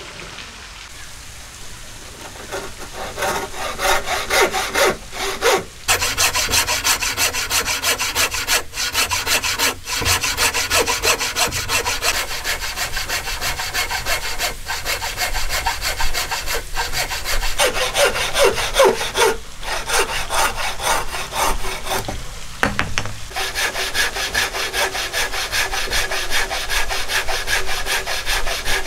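Wooden frame saw cutting across a wooden beam by hand: a steady rasping of back-and-forth strokes that builds up a couple of seconds in and stops for brief moments a few times.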